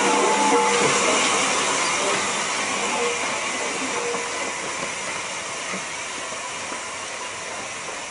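Furness Railway No 20, an 1860s 0-4-0 steam locomotive, hissing steam steadily as its train moves slowly by. The hiss fades gradually.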